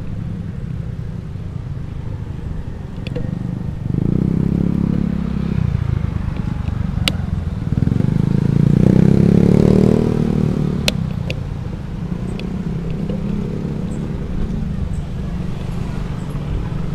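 Low wind and road rumble on a moving bicycle-mounted camera, with motorcycle engines passing close by twice; the louder pass comes about halfway through. A few sharp clicks sound now and then.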